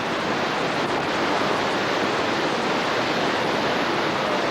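Floodwater rushing steadily over and around a low dam and through the rapids below, running about a foot over the top with the gate wide open.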